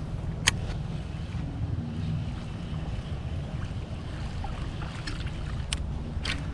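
Steady low rumble of a kayak out on the water, with wind on the microphone and faint wavering hum, broken by three short sharp clicks: one about half a second in and two near the end.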